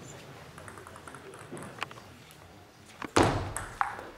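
Table tennis play: a few faint ball taps, then a loud thud about three seconds in as play starts, followed by a short ping of the celluloid ball.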